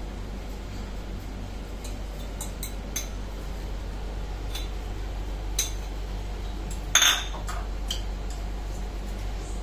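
A metal fork clinking and scraping against bowls as beaten egg is scraped out of a small bowl into a larger one. There are scattered light clinks, with one longer, louder scrape about seven seconds in.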